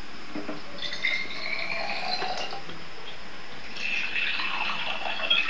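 Water pouring into a glass, with a tone that rises slowly as it fills, played from a television advert through the TV's speakers.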